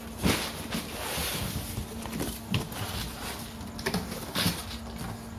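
Scattered light knocks, clicks and rustles of things being handled, with a faint steady hum underneath.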